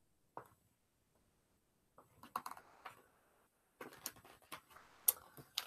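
Hardback picture book being handled and its page turned: faint rustles of paper and a scattering of small taps and clicks, beginning about two seconds in.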